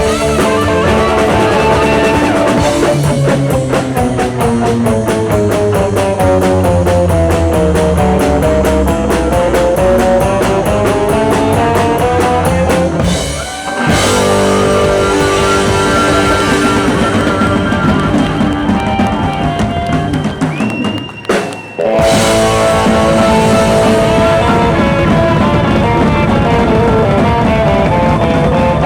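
Rock music with guitar and drums, breaking off briefly twice, about a third of the way in and again about three quarters of the way in.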